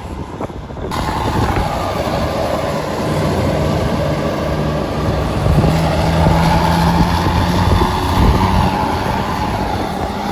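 Large tour bus engine running at close range, with road noise; it grows louder about a second in, and a low engine drone comes in after a few seconds and is strongest in the middle.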